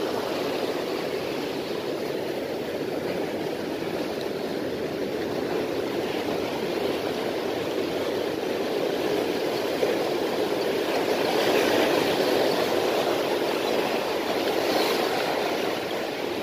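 Sea surf washing and breaking against rocks: a steady rushing that swells louder about two-thirds of the way through.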